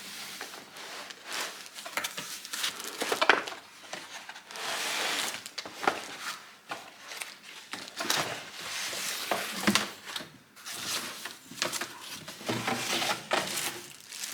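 Unboxing a robot vacuum cleaner: cardboard and plastic packaging being handled, with rustling and crinkling in uneven spells and scattered short knocks and clicks.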